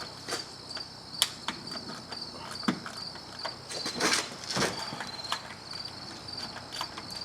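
Crickets chirping in a steady pulsing trill, with scattered sharp clicks and knocks of hand tools and a brief stretch of scraping and rustling about four seconds in, as a hand works around the engine's rear ignition coil.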